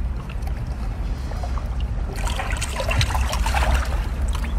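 Wet squelching and crackling from about two seconds in, as hands twist and pull at a cooked coconut snail (baler shell) to get at its meat, over a steady low rumble.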